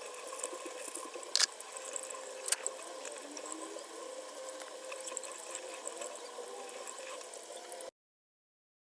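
Water running, with two sharp clicks about a second and a half and two and a half seconds in; the sound cuts off suddenly near the end.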